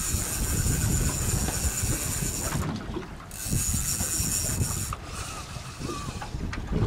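Wind buffeting the microphone aboard a small boat at sea, a steady low rumble with a high hiss that drops away twice, and a few faint clicks.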